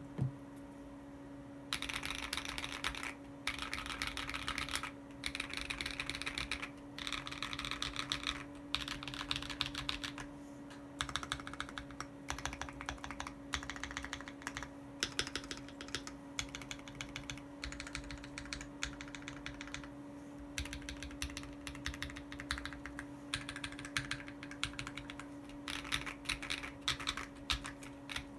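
Keychron Q1 mechanical keyboard with lubed, filmed Akko CS Ocean Blue switches, PBT keycaps and foam and tape mods being typed on in quick runs of keystrokes with short pauses between them, heard through a phone microphone. A steady low hum runs underneath.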